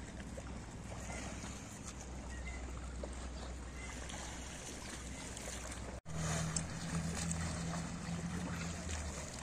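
Open-air seaside ambience: steady wind on the microphone and a low constant hum, broken by a sudden brief dropout about six seconds in, after which the hum is steadier and a little louder.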